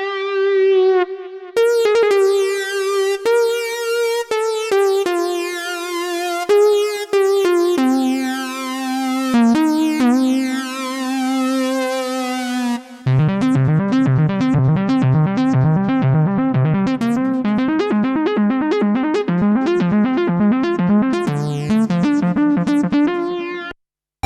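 Novation UltraNova synthesizer playing: a melodic lead patch with vibrato, then about halfway through a switch to a different patch with a fast rhythmic, arpeggiated pattern over low bass notes. The sound cuts out briefly near the end.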